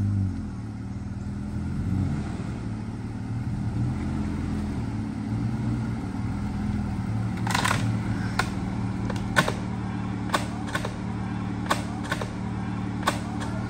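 A 4x4's engine running steadily at low revs as it pulls another vehicle, with a series of sharp knocks and clunks from about halfway through.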